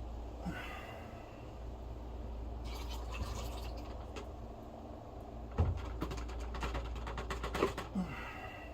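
Scattered clicks and knocks of hands working at a washing machine's drain pump to free a stuck part, loudest in a cluster near the end, over a steady low hum.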